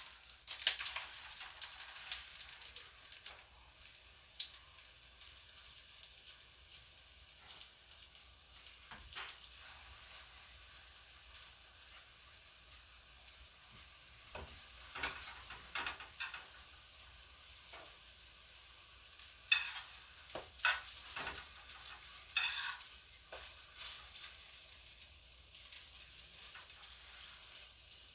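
Pancake batter frying in a pan with a steady high hiss. A utensil knocks and scrapes against the pan several times in the second half.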